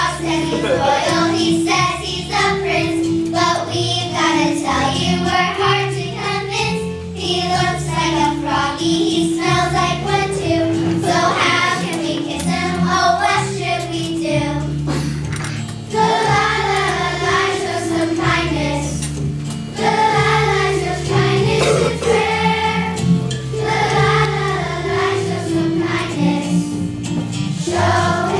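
A group of young girls singing a song together in unison, with instrumental accompaniment carrying a steady bass line.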